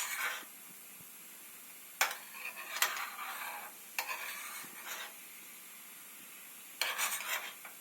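A spoon stirring and scraping around a small tadka pan of ginger juice and honey cooking down into a thick syrup on a gas flame. There are four short bursts of strokes with a faint steady hiss between them.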